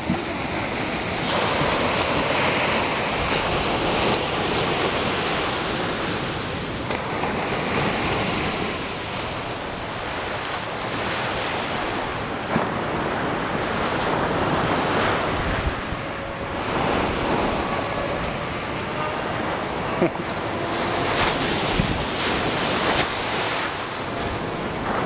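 Ocean surf breaking and washing up the beach, mixed with wind buffeting the microphone. The wash swells and eases gently throughout.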